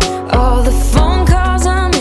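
Background music: a pop song with a sung melody over bass and a steady drum beat.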